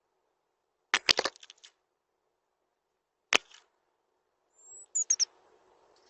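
European robin striking at the bird-table camera: a quick run of sharp taps about a second in, a single sharp tap in the middle, and another short run of taps near the end mixed with brief high thin notes.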